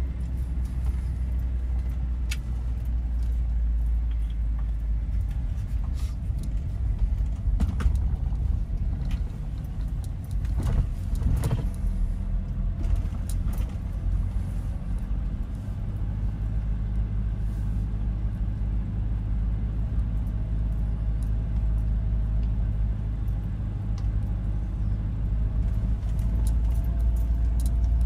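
Car driving on a road: a steady low rumble of engine and tyres, with scattered light clicks and rattles.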